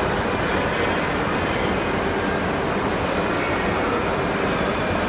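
Steady machine noise and hall din from a CNC router running at a trade show, an even rumble with a faint high steady tone over it.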